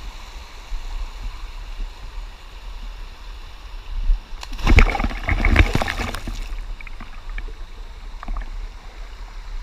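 Creek water running steadily, with a loud burst of splashing lasting about two seconds around the middle.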